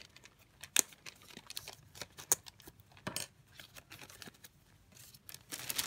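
Wrapping of a mailed craft item being opened by hand: scattered crinkles and sharp crackles, turning into denser, louder rustling near the end.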